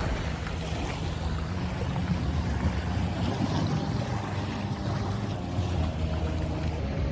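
Small boat under way on water: a steady low hum with the wash of water and wind on the microphone.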